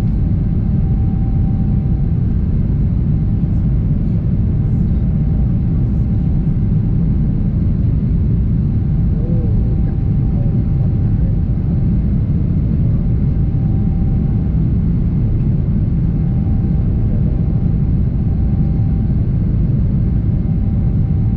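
Steady low rumble of a Boeing 777-300's jet engines and rushing air heard inside the passenger cabin during the climb after takeoff, with a faint steady whine above it.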